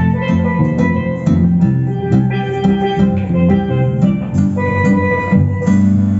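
A live band playing music: a melody of pitched notes over a steady drumbeat.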